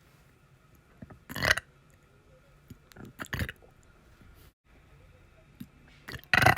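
A person burping three times: short, loud belches about two and a half seconds apart, with faint clicks between them.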